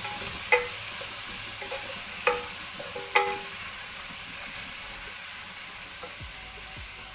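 Chopped tomatoes and cashews sizzling steadily in hot oil with sautéed onions and ginger-garlic in a pan, being stirred. Three sharp ringing clinks of the spoon against the pan in the first few seconds.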